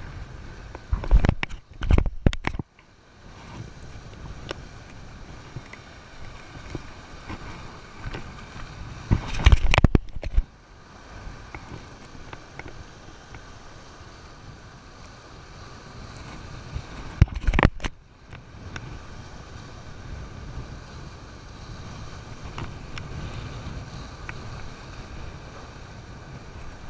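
Strong wind buffeting the camera microphone over the steady wash of surf against jetty rocks, with four brief loud blasts: two in the first few seconds, one near ten seconds and one near seventeen seconds.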